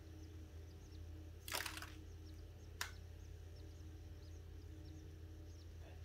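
Faint, rapid, high-pitched peeping of canary nestlings under the brooding hen, short falling chirps repeating throughout. A brief rustle about a second and a half in and a sharp click a little later are the loudest sounds.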